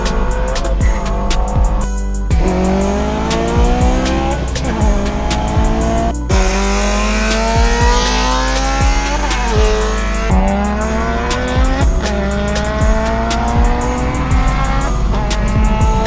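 Car engine accelerating hard through the gears, its pitch climbing and dropping back at each shift again and again, with music over it. The sound cuts out briefly about two seconds in and again about six seconds in.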